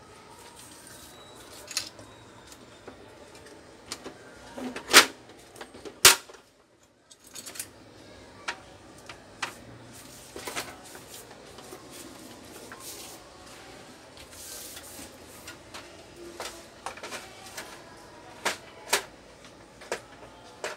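Scattered sharp clicks and knocks of plastic inkjet printer parts handled by hand while a Canon iP2770 is taken apart. The two loudest come about five and six seconds in, followed by a brief moment of silence.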